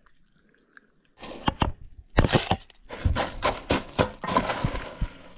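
Frozen contents of a metal mixing bowl tipped into a blender jar, a dense clattering run of knocks and rattles that starts about a second in.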